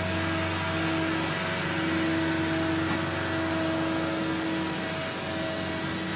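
Jet engines of Air Force One, a VC-25A Boeing 747, running at low taxi power as the aircraft rolls slowly past: a steady whine over a rushing hum.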